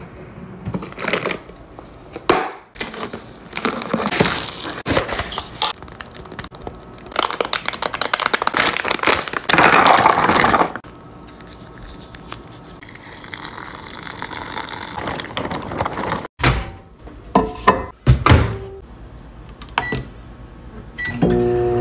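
Kitchen handling sounds: knocks of a drawer and containers, and plastic rice-cake packaging crinkling and being cut open. Near the end, two short microwave keypad beeps, then the microwave's steady hum as it starts running.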